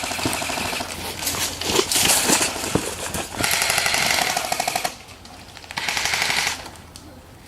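Airsoft guns firing on full auto in several rapid bursts, the longest lasting about a second and a half, then a short final burst about six seconds in.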